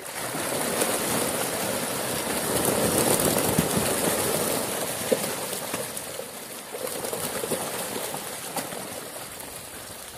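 Catfish thrashing and splashing at a pond's surface in a feeding frenzy as feed pellets are tossed in: a dense churning of water that swells over the first few seconds, then slowly eases.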